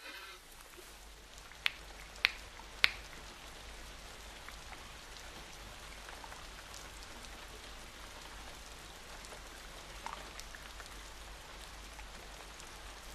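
Steady rain, an even hiss dotted with faint drop ticks, with three sharp clicks a little over half a second apart about two seconds in and a softer click later.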